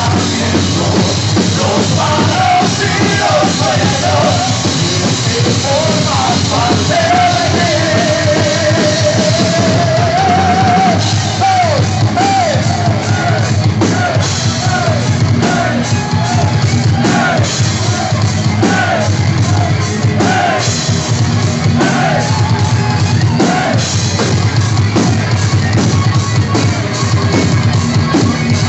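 Live rock band playing loud, heard from among the audience in a hall. About a quarter of the way in, a singer holds one long wavering note, then sings shorter phrases over guitars and a steady drum beat.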